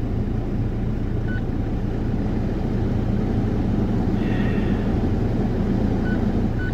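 Skoda Superb's 1.9 TDI four-cylinder turbodiesel engine idling steadily, heard from inside the cabin.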